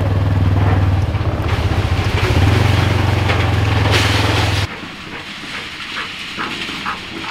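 Side-by-side UTV engine running steadily as the machine drives along a rough dirt track, a loud low drone with rattle and wind noise over it. About two-thirds through it cuts off suddenly to a quieter outdoor background with a few faint short chirps.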